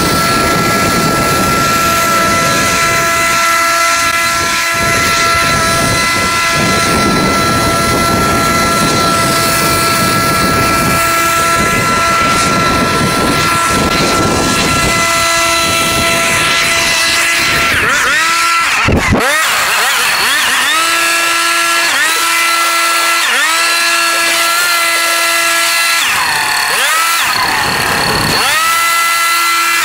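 Lawn mower engine running hard through very tall, overgrown grass, with a dense rush of cutting noise in the first half. In the second half its pitch drops sharply and comes back several times, deepest about two-thirds in and again near the end, as the engine bogs under the heavy load and recovers.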